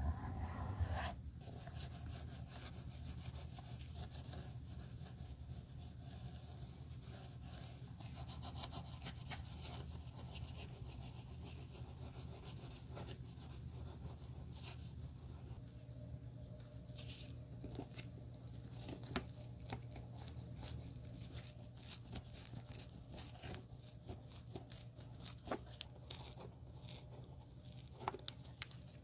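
A folded cloth pad on a tool rubbed back and forth over the leather of a slipper, a steady scrubbing, all over a low steady hum. In the second half, sharper scratches and clicks come in, and near the end a blade scrapes at the leather insole at the heel.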